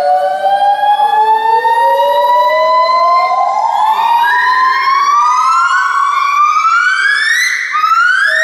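Monkey calls: a series of long, rising whooping notes, sometimes two voices overlapping, that grow shorter, higher and quicker toward the end.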